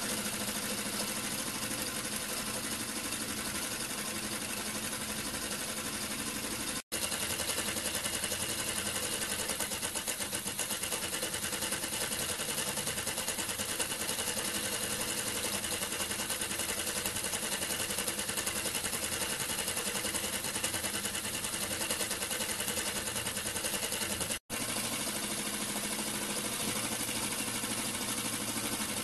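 Small single-cylinder rotary-valve model steam engine, 13.5 mm bore and stroke, running fast on compressed air with a rapid, even beat. It is clamped in a vise, which cuts down the rattling it made while loose on a thin metal plate. The sound drops out for a moment twice.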